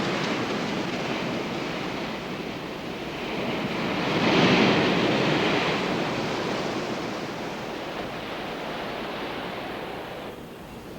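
Surf washing onto a beach: a steady rush of waves, one wave surging loudest about four seconds in and then ebbing away; the sound drops off abruptly near the end.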